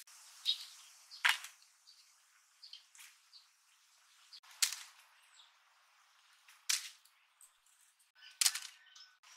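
Pine cones dropped one at a time into a wicker basket: about six short, crisp knocks a second or two apart, with a faint rustle between them.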